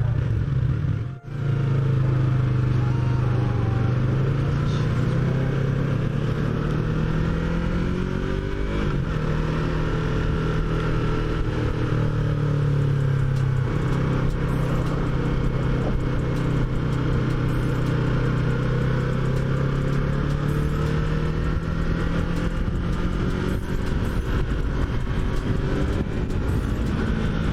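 Yamaha MT-03's 321 cc parallel-twin engine running under way at a fairly steady speed, its note rising and falling gently with the throttle. The sound cuts out briefly about a second in.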